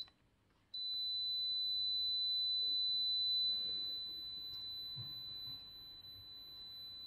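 LOMVUM LW10 wall detector's buzzer giving a continuous high-pitched beep. The tone cuts out for a moment just after the start and then holds steady. The scanner is acting up, signalling a detection that makes no sense.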